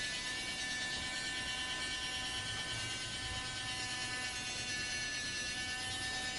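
Small electric motor of a Dickie Toys giant toy crane running steadily: an even, high whirring whine.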